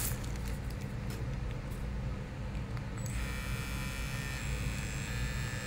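JRL cordless hair trimmer switched on about three seconds in and running steadily with a high-pitched buzz.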